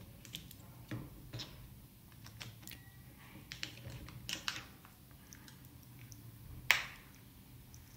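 Small plastic clicks and knocks as batteries are pressed into a battery holder and the holder is shut into a plastic remote-control case, with one louder snap near the end.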